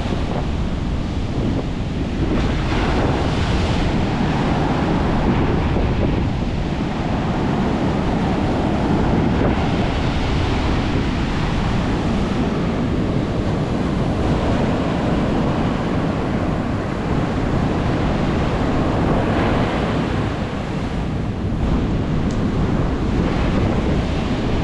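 Rough, storm-driven Atlantic surf crashing and washing in, with strong gusts buffeting the microphone. The sound is a dense, steady rush that swells and eases every few seconds.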